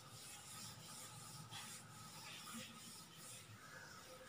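Faint rubbing of a board eraser wiping chalk off a blackboard, over quiet room tone.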